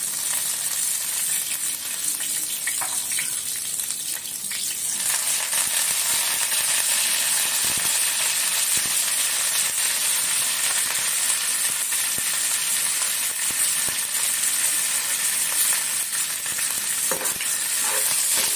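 Mustard seeds, cumin, garlic and curry leaves sizzling in hot oil in a frying pan: a tadka (tempering) being made. The sizzle grows louder about five seconds in, with scattered pops.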